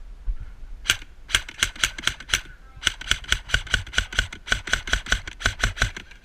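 Airsoft gun firing a rapid string of single shots: one sharp crack, a quick run of about six, then a steady stream at roughly five or six shots a second.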